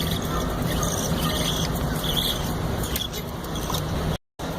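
Steady rushing background noise with a low hum, with a few short high chirps from budgerigars over it. The sound cuts out for a moment near the end.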